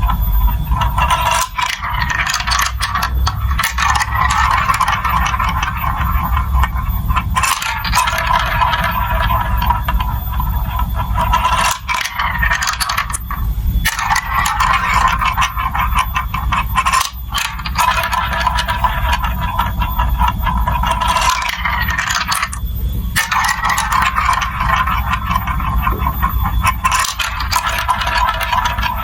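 Marbles rolling and clattering down a plastic building-block marble run, a continuous rattle full of small clicks over a low rolling rumble, with a few brief breaks.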